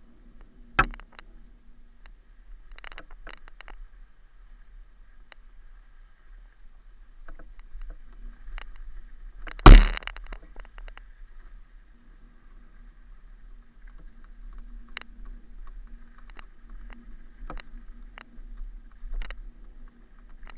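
Scattered light clicks and knocks, with a sharp loud thump about ten seconds in and a smaller one about a second in.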